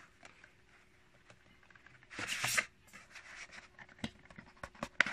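Rigid cardboard product box being handled: quiet at first, then a short rustling scrape about two seconds in, and a few light taps and knocks near the end.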